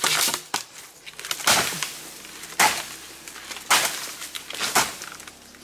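Repeated sharp impacts, about one a second, each with a short scraping tail.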